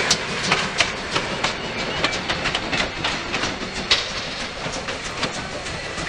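Steam locomotive rolling slowly along the track, its wheels giving irregular sharp clicks and knocks over a steady hiss, fading a little as it moves away.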